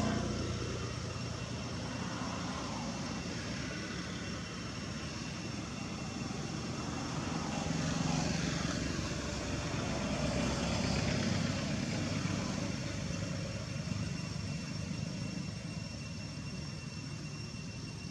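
A distant engine drone, steady and low, swelling a little about eight seconds in and again about eleven seconds in, with a faint steady high whine above it.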